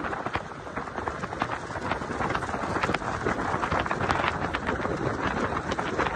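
Wind on the microphone and road noise from a moving vehicle, broken by many irregular clicks and knocks. It grows slightly louder toward the end.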